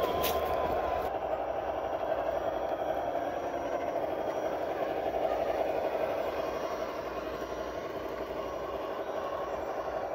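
Cross RC GC-4 scale RC crawler truck's electric motor and geared drivetrain whirring steadily as it crawls over dirt and leaves, a little quieter in the second half.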